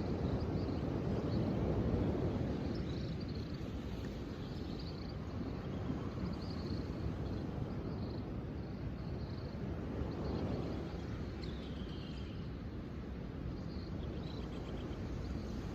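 Outdoor nature ambience: a low rushing noise that swells and eases, with small birds chirping now and then above it and one short falling call about 11 seconds in.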